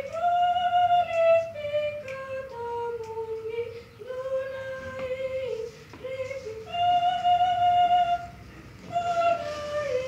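A young woman singing a devotional hymn, one voice line in slow phrases of long held notes.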